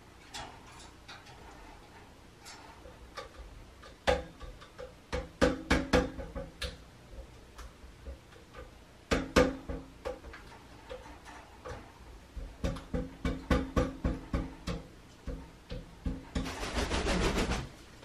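Pet American crows and a magpie making short clicking and knocking calls, some with a low, hoarse tone, coming in quick clusters. Near the end, a dense flurry about a second long, like wingbeats.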